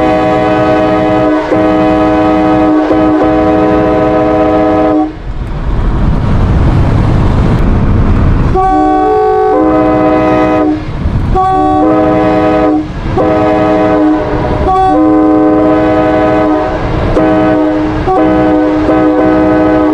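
A Nathan Airchime K5LA five-chime train air horn, the 1980s tagless version, blowing a steady multi-note chord. One long blast lasts about five seconds. After a pause filled with low rumbling, a string of shorter blasts follows, with brief breaks between them.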